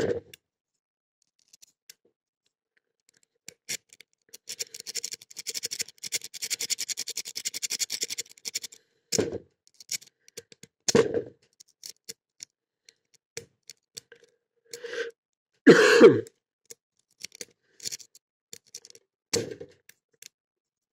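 A lock-pick rake scraping in and out of a Blossom padlock's pin-tumbler core under light tension, making a rapid run of small clicks for about five seconds; the pins keep jamming and the lock does not rake open. Several short, louder sounds follow in the second half, the loudest about two-thirds of the way in.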